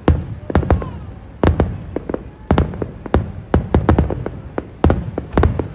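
Aerial fireworks shells bursting in quick, irregular succession: many sharp booms, often several a second, with a low rumble between them.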